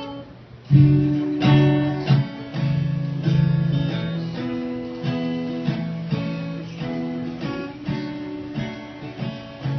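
Acoustic guitar strummed in chords during an instrumental break between the sung lines of a song. After a brief lull at the start, a strong strum comes in about three-quarters of a second in, and the strumming then carries on at a steady pace.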